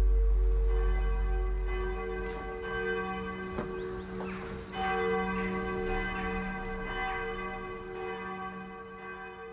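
Church bells ringing: several strikes with long, overlapping ringing tones that slowly die away. Under them a deep low rumble fades out in the first two seconds.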